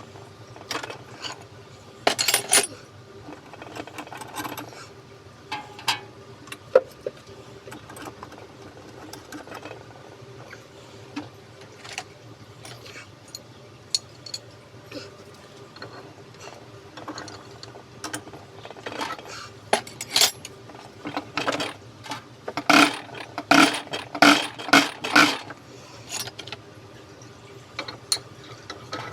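Metal hand tools and small metal parts clinking and tapping during injector work, in scattered knocks with a quick run of louder clinks about two-thirds of the way through.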